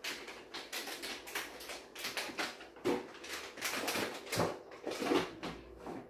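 Kitchen food-preparation handling noises at a counter: a quick, unbroken run of rustles, scrapes and small clicks, a little louder past the middle.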